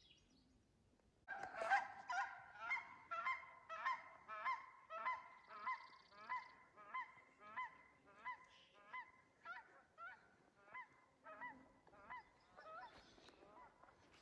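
A large bird calling with a repeated, evenly spaced honk, about two calls a second, starting a little over a second in and carrying on for about twelve seconds, slightly fainter toward the end.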